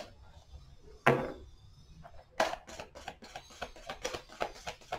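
A deck of oracle cards being shuffled by hand: a quick patter of small card clicks, with two louder knocks, one about a second in and one about halfway through.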